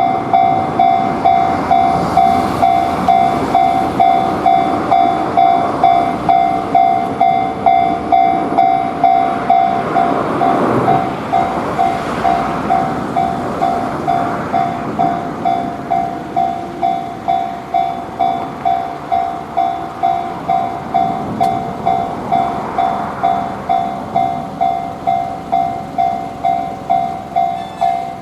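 Japanese level-crossing alarm ringing its repeated two-tone "kan-kan" clang, about two strikes a second, while a train rumbles past. The train noise swells about ten seconds in and again near the end.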